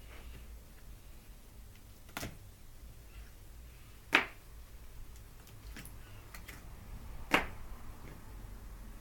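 Small hardware being handled during a laptop memory upgrade: three sharp clicks a few seconds apart, with faint light ticks between them.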